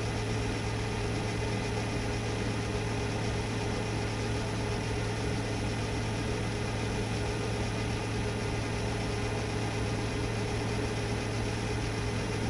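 Myford metal lathe running steadily while turning down a metal shaft stub, a constant low hum with a steady higher tone over it.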